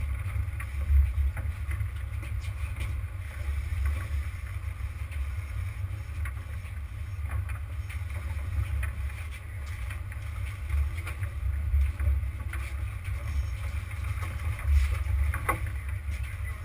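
Low, uneven rumble aboard a sport-fishing boat at sea, with a few faint clicks and knocks.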